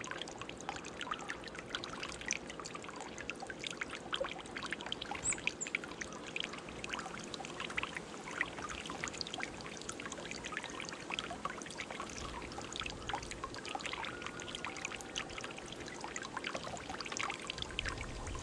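Water trickling and pouring in a stone birdbath, with irregular small splashes as a chickadee bathes, dipping and flicking its wings in the water.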